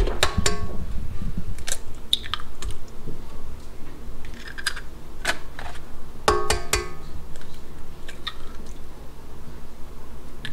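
Eggs being cracked on the rim of a stainless steel stand-mixer bowl, with the mixer's tilt head handled: a string of sharp knocks and clicks, twice leaving the metal bowl ringing briefly, near the start and a little past the middle.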